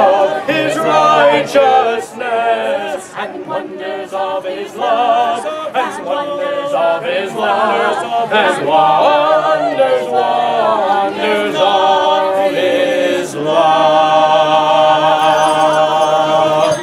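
A choir of several voices singing together, closing on a long held chord over the last few seconds.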